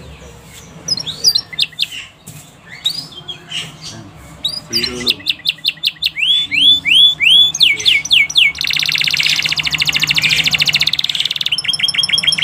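Domestic canary singing: scattered chirps give way to a quick series of repeated down-slurred notes, then a long, very rapid rolling trill of about three seconds, and a fast run of short repeated notes near the end.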